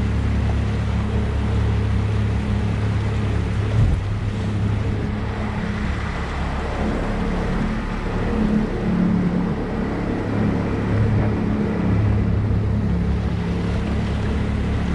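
An engine running steadily at an even speed, a constant low hum with rushing noise over it. A single knock comes about four seconds in.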